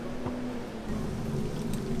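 A motor vehicle's engine hums steadily and grows louder about a second in, as if a car is approaching.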